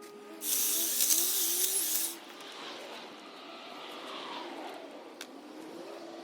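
Ego battery hedge trimmer running, its motor pitch wavering, with a loud hissing burst from about half a second to two seconds in.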